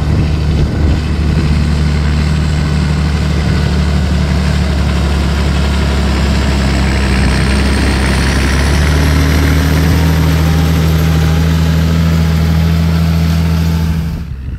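The Massey Ferguson 8470 Dyna-VT's 8.4-litre SISU six-cylinder diesel runs steadily under load, pulling a Köckerling Allrounder 900 tine cultivator through stubble. A faint high whine rises in pitch about halfway through. The sound drops away sharply near the end.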